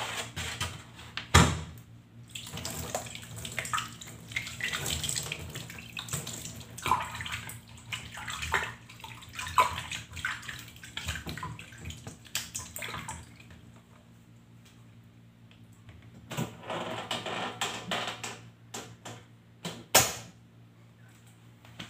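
Water splashing and small plastic parts clattering in a stainless steel sink as a baby bottle and its parts are washed by hand, with a sharp knock about a second and a half in and another near the end. The splashing pauses for a few seconds past the middle, then resumes.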